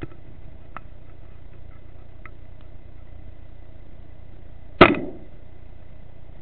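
A single shot from a .22 FX Wildcat FAC-rated PCP air rifle, a sharp crack with a short tail, about five seconds in. A few faint ticks come before it over a steady low background.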